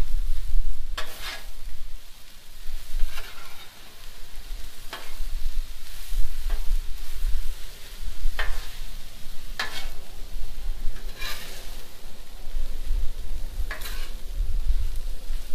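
Metal spatula scraping and clacking on a Blackstone flat-top griddle as ground beef with diced potatoes is stirred and chopped, in sharp irregular strokes every second or two. A steady sizzle of the frying meat runs underneath.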